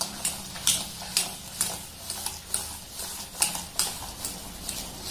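Wire whisk stirring semolina and curd in a stainless steel bowl, its tines clicking and scraping against the metal about twice a second.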